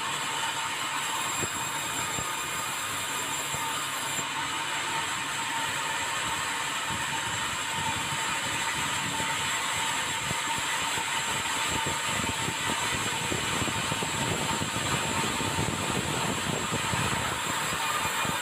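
Steady mechanical running noise with a constant whine and a low rumble that grows rougher in the second half.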